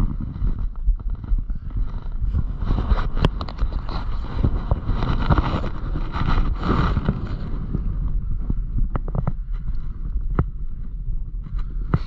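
Wind buffeting the microphone of a skier on the move, with the hiss of skis on snow swelling in the middle and a few sharp clicks.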